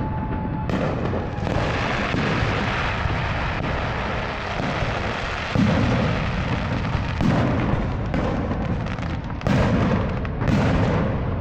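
Aerial fireworks display: deep booms from shells bursting one after another, with crackling in between. Four especially loud bangs come in the second half.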